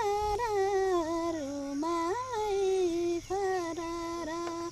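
A young woman singing a Nepali folk song unaccompanied, drawing out a long wordless phrase of held notes that slide up and down between pitches, with a few short breaks for breath.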